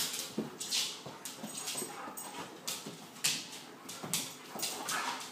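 Tamaskan dogs play-wrestling, with short dog vocalisations and the scuffle of paws on a wooden floor coming in quick, irregular bursts.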